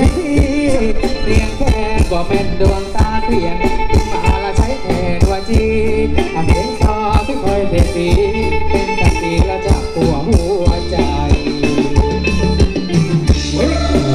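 Thai ramwong dance music played live by a band, with a steady drum beat under a singer and melody instruments.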